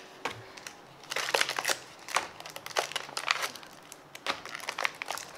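Foil packets of modelling clay crinkling as they are handled, in irregular clusters of crackles that start about a second in.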